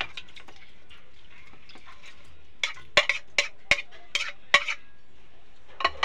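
Small mourala fish tipped from a plate into a non-stick kadai of oil and water, with a run of sharp clicks and taps as the plate and fish knock against the pan from about two and a half seconds in, then a couple of spoon taps against the pan near the end.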